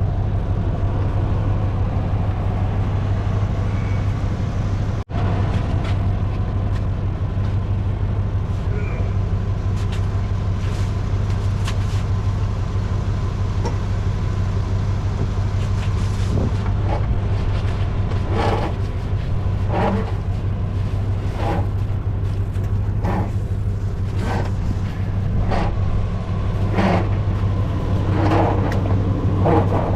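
A vehicle driving in four-wheel drive over soft field ground, its engine and drivetrain making a steady low drone. In the second half comes a string of short knocks or clunks, about one a second.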